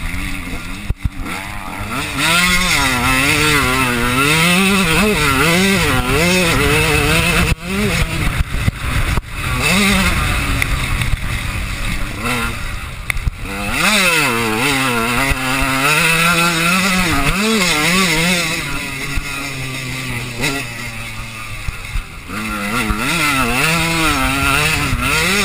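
Motocross bike's engine heard from onboard, revving up and falling back again and again as the rider works the throttle through the gears. About eight seconds in the engine drops away briefly among a few sharp knocks, and it eases off once more a few seconds later.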